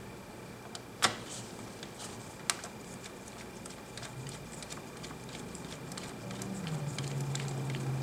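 Light ticks and taps of a hand working a tablet's plastic back cover, with two sharp clicks, one about a second in and one about two and a half seconds in. A low steady hum comes in near the end.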